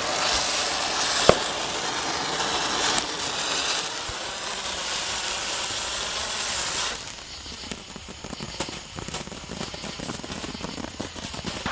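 Handheld Texas sword firework spraying a shower of sparks with a steady hiss, and one sharp pop about a second in. The hiss cuts off about seven seconds in, leaving fainter crackling and scattered small pops.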